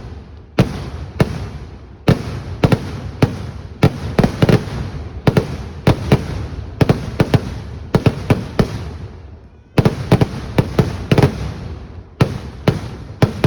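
Fireworks display: rapid volleys of loud, sharp bangs in quick clusters, each trailing off in an echoing rumble. The bangs die down briefly about nine and a half seconds in, then resume just as densely.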